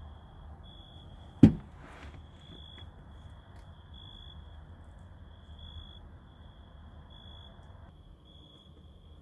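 A single sharp thump about a second and a half in, over a steady high-pitched tone that swells briefly every second or so.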